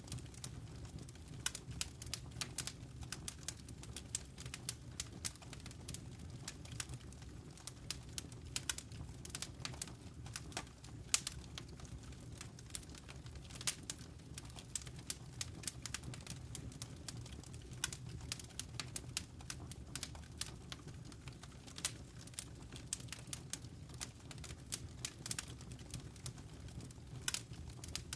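Wood fire in a fireplace crackling, with irregular snaps and pops several times a second over a steady low rumble.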